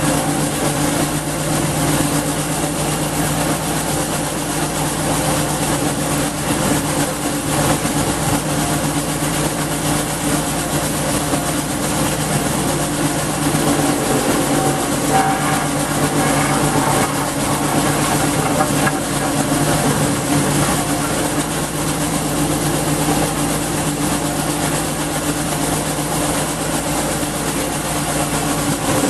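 A garden wood chipper's 5.5 HP Briggs and Stratton single-cylinder engine running steadily, loud and unchanging throughout.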